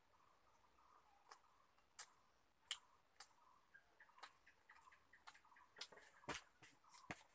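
Faint mouth clicks and lip smacks of a person eating rice by hand. They come at irregular moments, roughly one a second, and grow more frequent in the second half.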